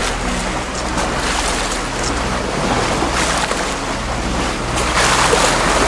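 Catamaran under way on open water: wind buffeting the microphone and water rushing past the hull over a low steady drone, swelling louder near the end.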